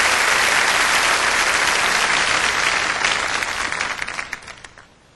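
A large congregation applauding. The applause is steady at first, thins into scattered claps after about three seconds, and dies away near the end.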